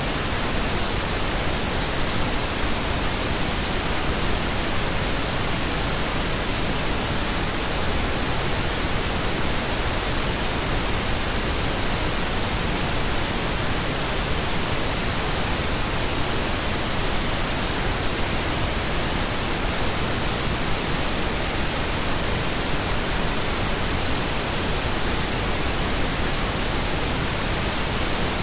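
Steady, unchanging pink noise, an even hiss spread across all pitches.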